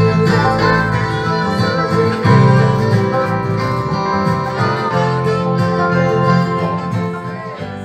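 A multitrack song played back from a music production program through the repaired M-Audio M-Track Plus audio interface and out of the studio speakers. The music plays loud and without a break, the sign that the interface works again after the repair.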